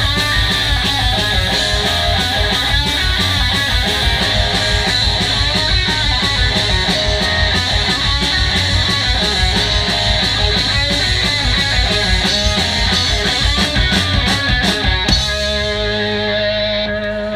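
Live punk rock band playing loud distorted electric guitars with bass and drum kit. About fifteen seconds in the drumming stops and held notes ring on.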